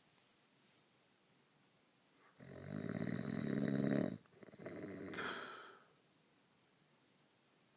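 A sleeper snoring: one long, rattling snore on the in-breath lasting about two seconds, then a short hissing out-breath, with quiet pauses before and after.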